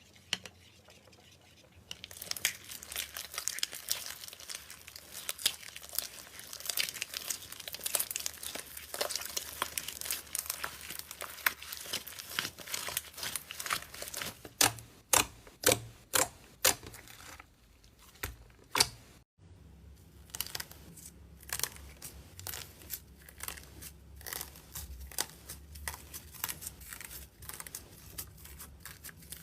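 Slime being handled by hand, giving a dense crackling of small pops and clicks. Between about halfway and two-thirds through come a series of louder, separate pops. The sound cuts off abruptly, then picks up again as quieter crackling.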